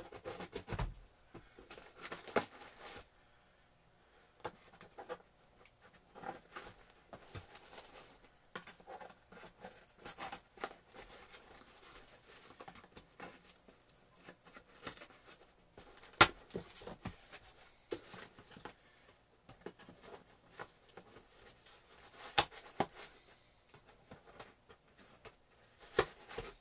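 Mailed packages being opened by hand: cardboard and plastic packaging rustling and tearing, with scattered clicks and a few sharp knocks, the loudest about two-thirds of the way through.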